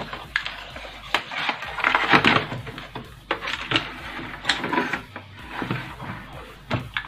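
Irregular clicks, knocks and scuffs of wire leads and plastic plug connectors being handled and pushed back onto a CRT television's chassis board.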